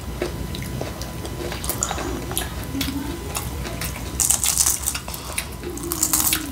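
Close-up eating sounds: wet chewing and smacking with crisp crunches of taco salad with Flamin' Hot Doritos. The crunching is loudest about four seconds in.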